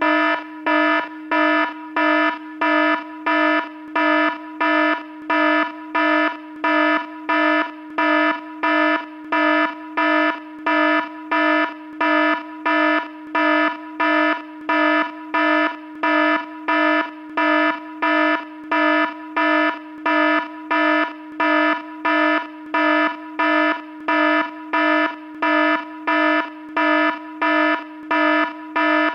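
Electronic alarm repeating a harsh buzzing tone in even pulses, about three every two seconds, without any change in pitch or pace.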